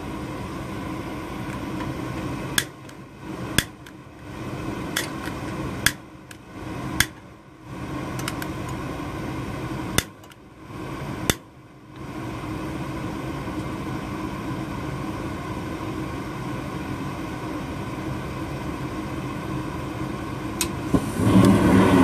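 Goodman gas furnace running with a steady hum while a utility lighter is clicked about seven times at the burners. About a second before the end the burners catch and the sound gets clearly louder. The furnace is being lit by hand because its hot surface igniter has failed open.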